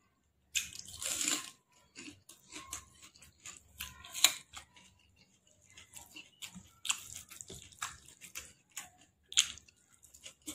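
Wet eating sounds: fingers squelching and clicking through rice soaked in chicken and egg gravy, and sticky mouth smacks, in irregular short bursts with a few louder ones.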